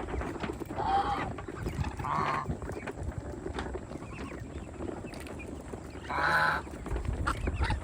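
Domestic geese honking: three loud calls, about a second in, two seconds in and six seconds in, with fainter calls between, over a low rumble.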